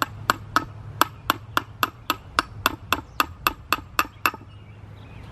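Hand hammer striking a steel chisel to shape a limestone block: about fifteen sharp, ringing taps, three or four a second, stopping a little after four seconds in.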